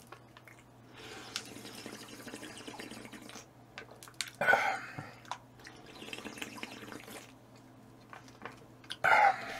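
Close-miked eating sounds: wet chewing and slurping, with two louder wet slurps about four and a half and nine seconds in.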